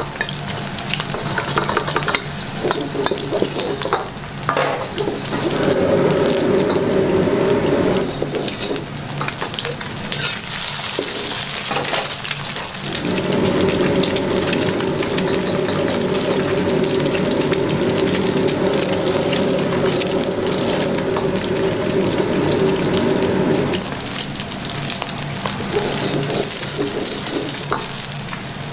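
Several eggs frying in hot oil in a black wok: steady sizzling and crackling, with a lower steady rumble that comes in about five seconds in, drops out near eight seconds, and returns from about thirteen to twenty-four seconds.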